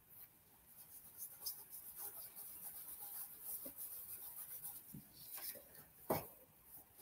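Microfiber cloth rubbing over inked, heat-embossed cardstock: faint, soft wiping strokes, which lift the ink off the raised embossed images. A single light tap near the end.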